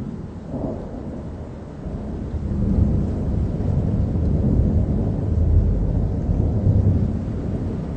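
Rolling thunder: a low rumble that builds about two seconds in, stays loud for several seconds and eases off near the end.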